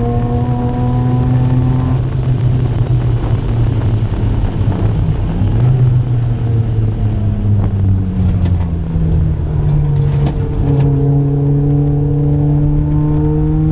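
Single-turbo Mazda RX-7 FD3S rotary engine being driven hard on track. Its pitch climbs under acceleration, breaks off about two seconds in, then falls with a string of sharp crackles around eight to ten seconds before climbing again from about eleven seconds.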